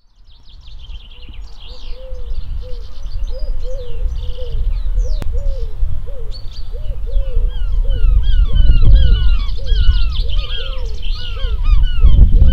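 A flock of birds calling over and over in short rising-and-falling notes, about two a second, with fine high chirps near the start. Under them runs a strong, uneven low rumble. The sound fades in over the first couple of seconds.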